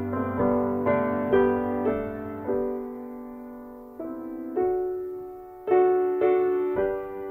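Slow solo piano music: notes and chords struck about once or twice a second, each left to ring and fade.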